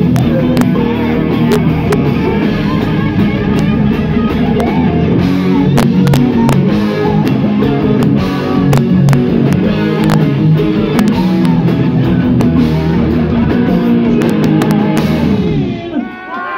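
Live rock band playing loud, with an electric guitar over bass and a drum kit whose cymbal and drum hits land steadily throughout. The band stops sharply near the end.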